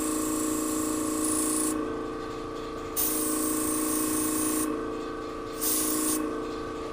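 Airbrush spraying paint in three bursts of hiss, the last one short, over a steady hum.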